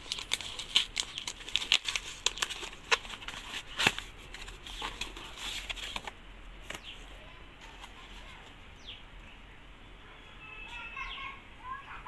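Cardboard delivery box being torn open and handled by hand: a quick run of sharp rips, crackles and rustles over about the first half, then quieter handling.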